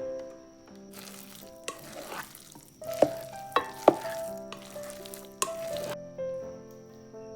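Food being stirred and scraped in a pan or pot with a utensil, in several separate strokes with sharp knocks of the utensil against the pan, for about five seconds, over soft background music.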